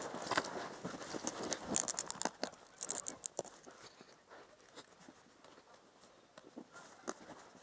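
Irregular crunching and scraping in snow, busiest for the first three seconds or so, then thinning out and quieter.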